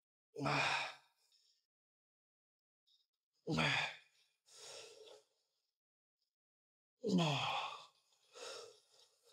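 A man breathing out hard with his voice in it, three times about three seconds apart, each breath falling in pitch. The second and third are each followed by a quieter breath in. This is effort breathing through the reps of a set of hack squats.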